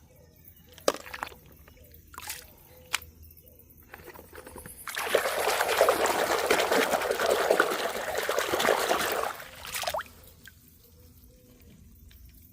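Water pouring and splashing for about four seconds, starting about five seconds in, with a few light knocks before it.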